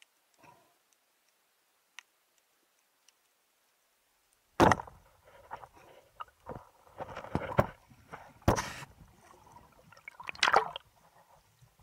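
A few faint clicks underwater, then from about four and a half seconds in, loud irregular splashing and sloshing of water around a diver at the surface, which dies away near the end.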